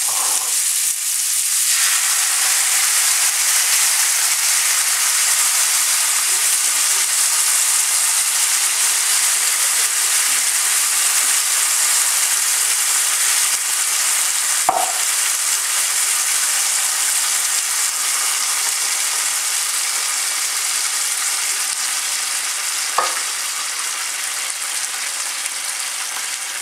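Sliced chorizo sizzling in hot oil in a frying pan, a steady hiss that eases gradually through the second half. Two short sharp knocks stand out, about halfway through and again a few seconds before the end.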